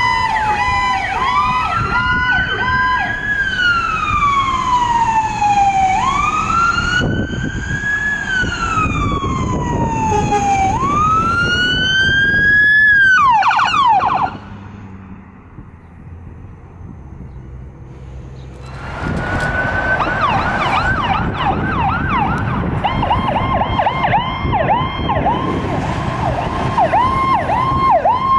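Ambulance electronic sirens sounding Powercall tones. A slow wail rises and falls every few seconds over a faster chirping tone, breaking off in quick falling sweeps. After a few quieter seconds, a fast yelp starts and repeats two to three times a second.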